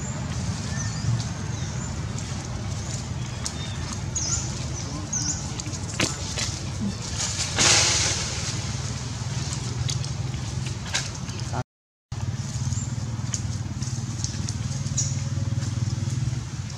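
A steady low motor hum, with a few short high squeaks over it and a brief rush of noise about eight seconds in. The sound cuts out completely for a moment near the middle.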